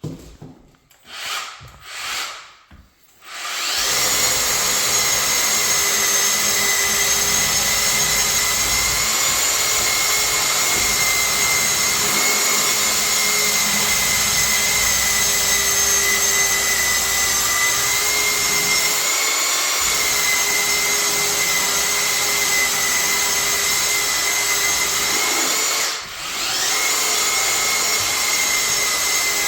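Milwaukee M18 Fuel cordless belt sander spinning up about four seconds in, then running steadily with a high whine while sanding cabinets with a 120-grit belt. Near the end it briefly drops off and spins back up.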